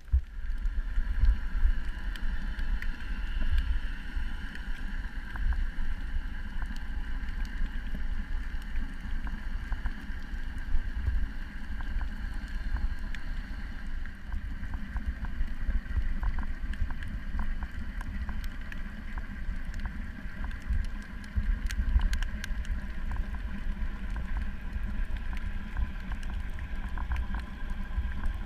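A motor running steadily: a low, uneven rumble with a steady hum above it, and scattered faint clicks.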